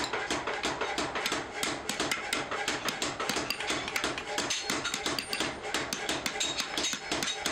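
A small hammer striking quickly and repeatedly on a steel block, about three or four sharp metallic taps a second, as the pins holding the wooden handle scales to a meat cleaver's tang are peened over.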